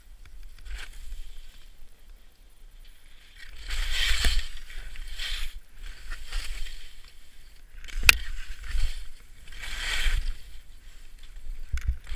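Skis scraping and hissing over snow in repeated swells as the skier turns, over a low wind rumble on the microphone. A single sharp click sounds about eight seconds in.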